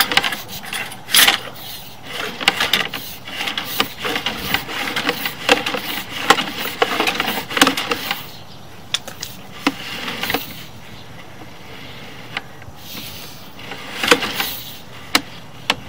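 Sewer inspection camera's push cable being fed into a cast iron drain line: irregular scraping and rubbing with many sharp clicks and knocks, busiest in the first half, dying down in the middle, with a few sharp knocks again near the end.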